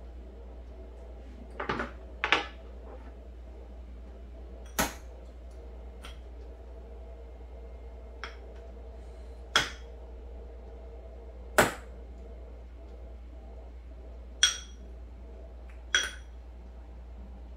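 Spoon knocking sharply against glassware about every one to three seconds as strawberries are muddled in a glass, over a faint steady hum.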